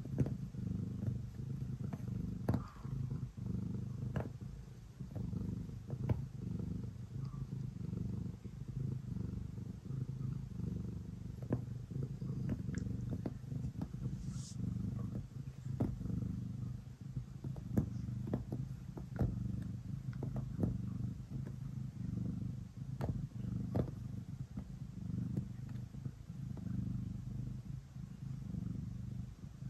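Domestic cat purring steadily while kneading, a low rumble that swells and eases every second or two.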